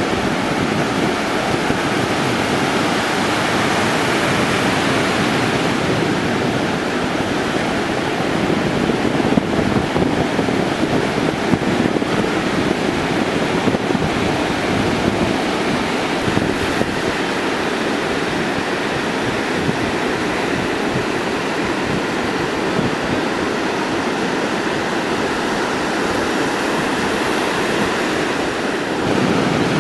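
Ocean surf from a hurricane swell breaking steadily on the beach, a continuous wash of waves, with wind buffeting the microphone.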